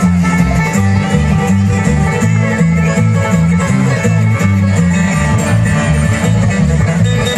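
Bluegrass band playing an instrumental passage, banjo and guitar picking over a bass line that steps from note to note.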